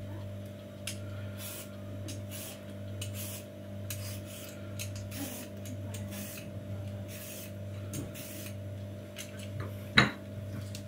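Vegetable peeler scraping the skin off a cucumber in repeated rasping strokes, roughly two a second, over a steady low hum. A sharp knock about ten seconds in.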